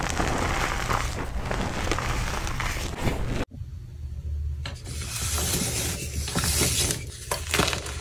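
Dyed gym chalk crushed and crumbled by hand, a gritty crunching and crackling full of small snaps. The sound cuts out abruptly about halfway through, then the crunching of harder chalk blocks starts again, brighter and crisper.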